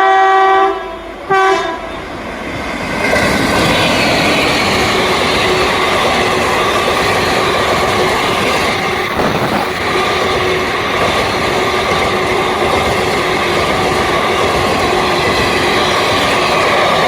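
Indian express train's locomotive horn sounding a long blast that cuts off under a second in, then a short second toot. Then the train runs past with a loud, steady rumble and clatter of wheels on rail.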